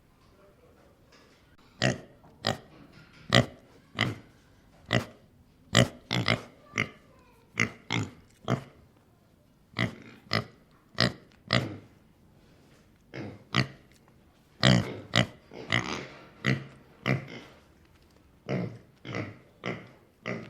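Pig snorting: short, separate nasal snorts and grunts in irregular bursts, some close together in quick runs.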